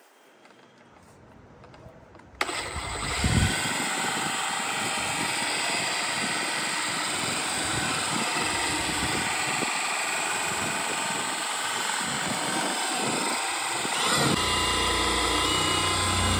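Milwaukee M18 cordless dual-action polisher switching on about two seconds in and running steadily with its foam pad pressed on a plastic headlight lens, polishing it during a headlight restoration. Near the end it gets louder, with a deeper hum.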